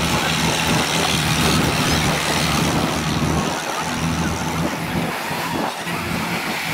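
Diesel tractor engines running as tractors drive off along a track; the nearest engine's steady hum drops away a little over halfway through.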